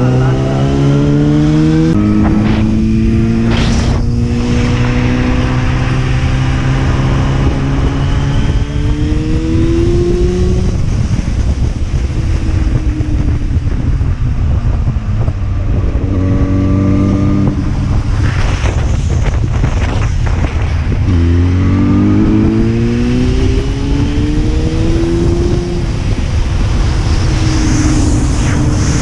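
Motorcycle engine accelerating through the gears, heard from the rider's position. Its pitch rises in each gear and drops back at each shift, several times over, above a steady low rumble.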